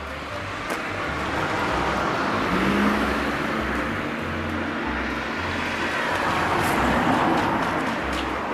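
Road traffic: vehicles passing, the noise swelling twice, about three seconds in and again about seven seconds in.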